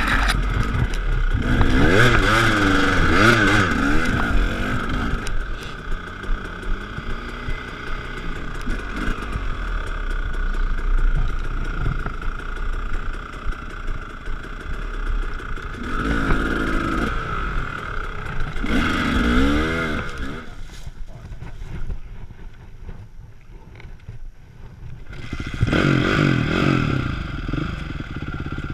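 Dirt bike engines revving up and easing off in repeated bursts, with a quieter lull a little past two-thirds through. Near the end a bike revs hard while stuck in creek mud, its rear wheel churning the water.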